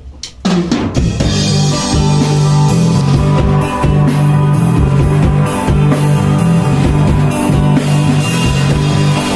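Rock band starting a song live: a couple of sharp clicks, then drums, bass and guitars come in together about half a second in and play on steadily, the bass line strongest.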